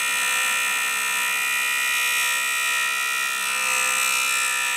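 JoolTool's spinning 120-grit ceramic abrasive disc grinding the point of a steel drill bit: a steady, high-pitched whine with a grinding hiss.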